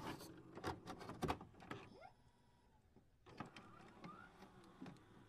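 Near silence, with a few faint scattered clicks and two short, faint rising chirps.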